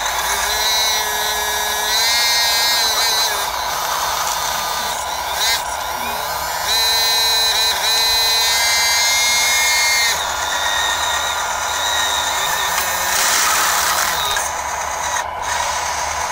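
Hydraulic pump and motors of a Bruder Cat 325D RC excavator converted to hydraulics, whining steadily. The pitch steps up and down as the boom and arm work under load.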